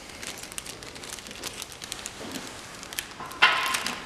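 A plastic freezer bag crinkled and rustled by hand, loudest from about three and a half seconds in, after a run of light clicks and taps.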